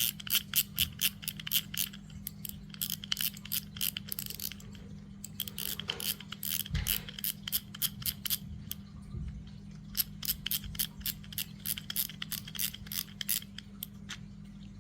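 Quick, irregular sharp clicks and light scrapes from handling a new Daiwa Caldia spinning reel and its packaging as it is unboxed, over a steady low hum.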